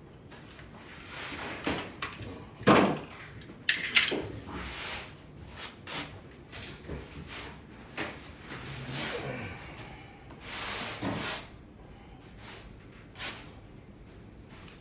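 Irregular knocks, bumps and rustling from parts being handled and set in place, with a few sharper knocks about three and four seconds in.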